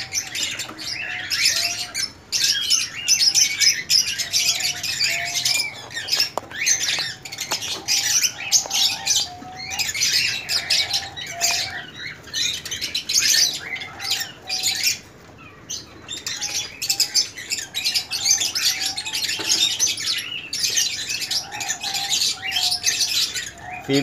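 Many small cage birds chirping and squawking without pause in a busy aviary chorus, with short lower calls repeating underneath.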